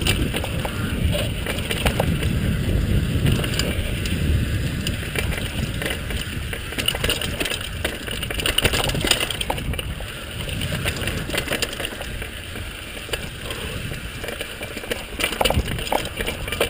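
Mountain bike riding fast down a rocky dirt trail: tyres rolling and crunching over dirt and stones, with the bike clattering and rattling over rocks, under a steady rumble of wind buffeting the microphone.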